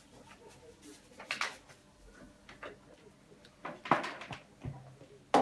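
A child slurping a thick banana-kefir smoothie through a drinking straw: a few short slurps about a second in and around four seconds in. A short sharp click comes near the end.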